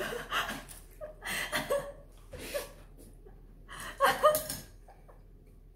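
A person's short bursts of laughter and huffing breaths, four of them, in reaction to lasagne that is very hot.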